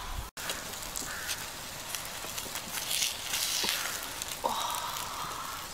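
A drawn-out high animal call near the end, rising briefly and then held for about a second, with a shorter falling call about a second in. Scattered light clicks and crackles sound between the calls.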